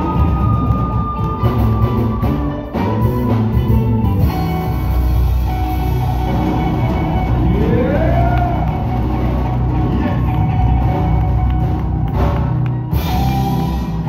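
Live band playing a loud song, with a held note near the start and a note sliding upward about halfway through.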